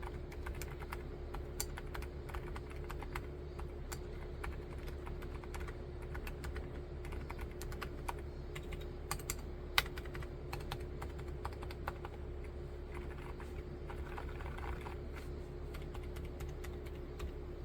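Continuous typing on a BRYMISTUDIO NULL75 wooden-case (rosewood) mechanical keyboard with Cherry MX Silent Red linear switches: a steady stream of keystrokes with one sharper clack nearly ten seconds in, over a faint steady hum.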